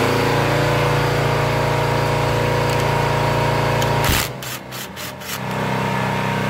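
An engine idling with a steady, even drone, which cuts out briefly for about a second near the end.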